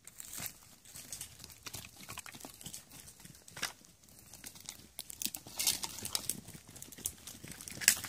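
Sheep grazing at close range on giant reed shoots, with irregular crisp snaps and crunches of biting and tearing stalks and rustling crackles from the dry cane and leaf litter underfoot.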